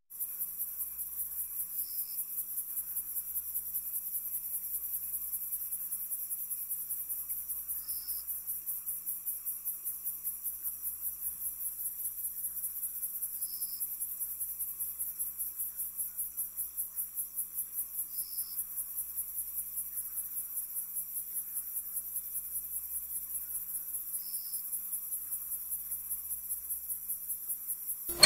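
Crickets chirping in a steady, fast, even pulse, a night-time ambience, with a short higher chirp every five or six seconds.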